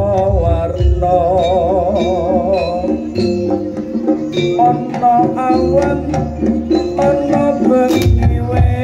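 Live Javanese jaranan gamelan music: hand-drum strokes under sustained pitched percussion tones, with a wavering, vibrato melody line about a second in and a deep sustained low tone in the second half.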